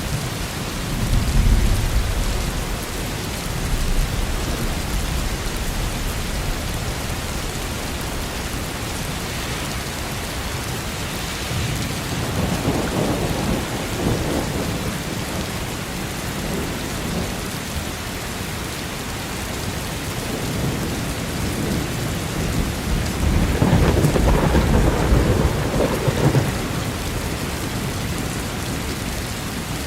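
Steady heavy rain with thunder rumbling three times: once about a second in, again around halfway, and a longer roll a few seconds before the end.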